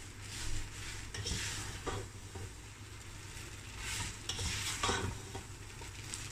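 Boiled spaghetti being stirred and tossed with a plastic spatula in a nonstick pot, frying in a little oil with a soft sizzle. The spatula makes a few short scraping swishes at irregular moments.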